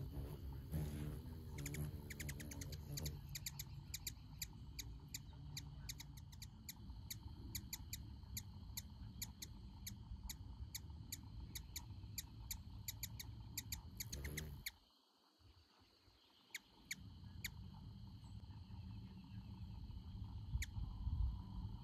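Outdoor evening ambience: short, sharp high-pitched chirps repeating a few times a second over a low rumble, thinning out in the second half. The sound cuts out for about two seconds near the middle.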